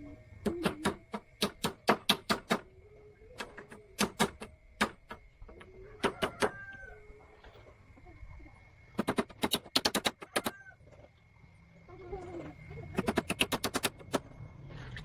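Hammer blows on wood, coming in several bursts of quick, sharp strikes, as of nails being driven into boat planking.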